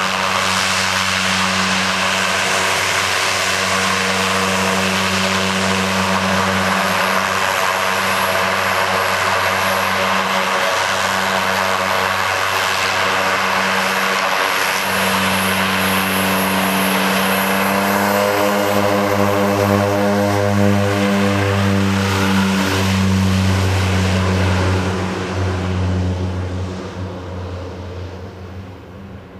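Twin Garrett T76 turboprop engines of an OV-10A Bronco at takeoff power on the takeoff roll: a loud, steady propeller drone with a high turbine whine. The tones waver as the plane goes by about two-thirds of the way through, then the sound fades as it moves away down the runway.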